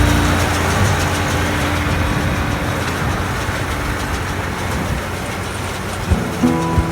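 Allis-Chalmers 7040 tractor and Case IH round baler running in the hayfield, heard as a steady, even rush of machinery noise. Background music comes back in about six seconds in.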